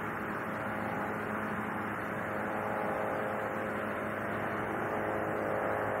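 Steady outdoor ambient noise: a continuous even rush with a faint low hum underneath and no distinct events.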